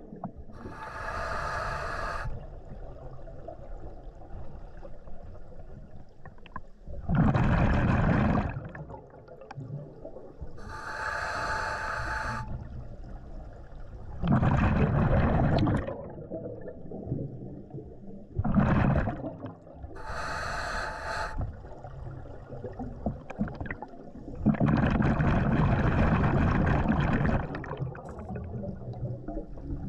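Scuba diver breathing through a regulator underwater: a hissing inhale about every ten seconds, each followed a few seconds later by a louder, lower burst of exhaled bubbles.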